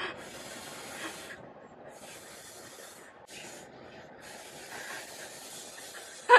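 A man blowing up an inflatable swim ring by mouth: three long, hissing breaths of air forced into the valve with short pauses between them, the last lasting about three seconds.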